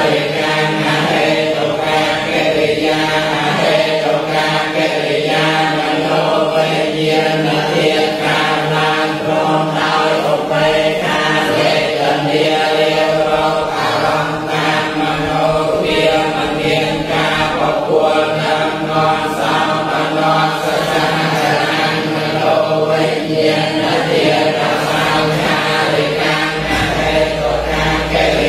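Buddhist monks and lay people chanting together from their books in a continuous, steady recitation.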